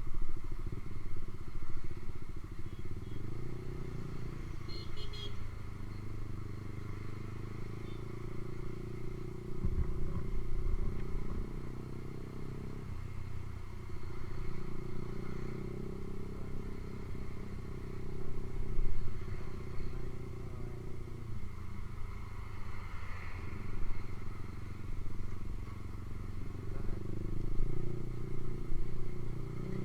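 Single-cylinder engine of a Honda CB150R motorcycle running through an aftermarket Ronin exhaust, its engine speed rising and falling several times.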